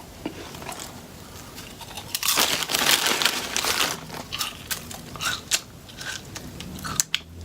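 Crinkling and crumpling of food packaging, with scattered crunching and sharp clicks.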